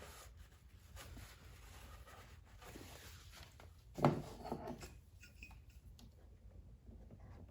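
Quiet hand-work noises on a small engine: faint rubbing and light clicks of parts and tools being handled, with one louder bump about four seconds in.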